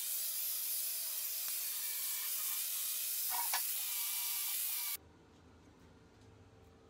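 Angle grinder working on a welded steel plate: a loud, steady hiss of the disc on the steel over a slightly wavering motor whine. It stops abruptly about five seconds in, leaving only a faint steady hum.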